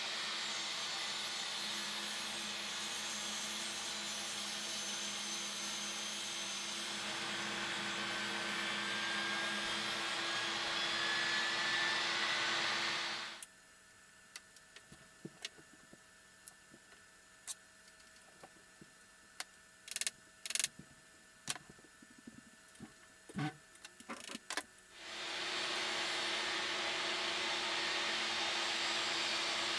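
Table saw running with its dust extraction while a board clamped upright in a resaw jig is fed through the blade, a steady loud noise with a faint rising whine partway through. It stops suddenly for a stretch of small clicks and knocks of hand work on the wooden jig, then the saw and extraction spin back up and run steadily.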